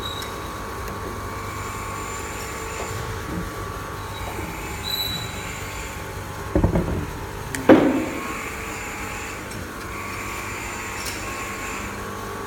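Steady machine hum with thin high whining tones, broken by two loud knocks about a second apart roughly two-thirds of the way through.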